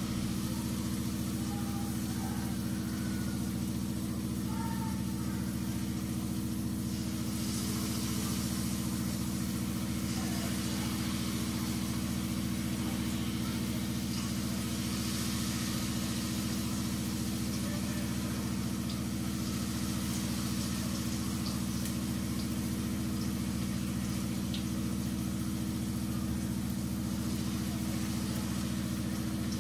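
A steady low mechanical hum runs throughout. Over it, hot cooking oil sizzles louder in two spells as battered potato slices are lowered into the pot to fry.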